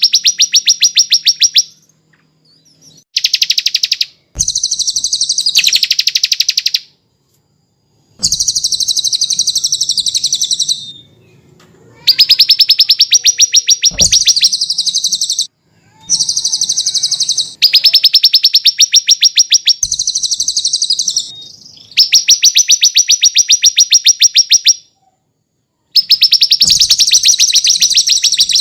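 Small songbird singing a fast, high-pitched trill in repeated bouts of one to four seconds each, with short pauses between them.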